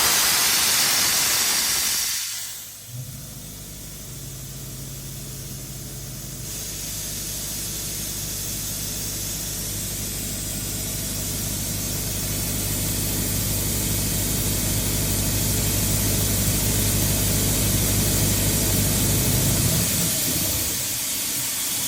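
Doosan portable air compressor: a loud rush of air for about the first two seconds, then the machine's engine running steadily under a hiss of air that grows slowly louder, its note changing near the end.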